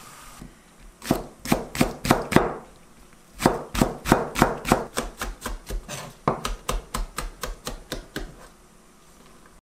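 Chef's knife chopping a large green onion into rounds on a plastic cutting board. A short run of knife strikes comes first, then a pause, then a longer steady run of about three chops a second that grows softer near the end.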